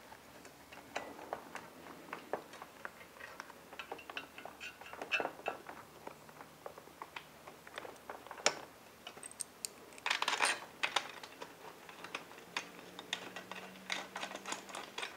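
Small metal clicks and taps as bolts, washers and spacers are fitted by hand through a steel luggage rack bracket and threaded into a motorcycle's mounting points. The clicks are scattered and irregular, with a louder cluster about ten seconds in.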